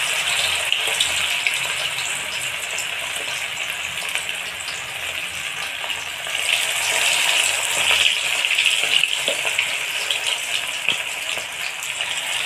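Marinated chicken pieces sizzling and bubbling as they deep-fry in hot oil in a kadai, a dense steady crackling hiss. The sizzle grows louder about six seconds in as more pieces are dropped into the oil.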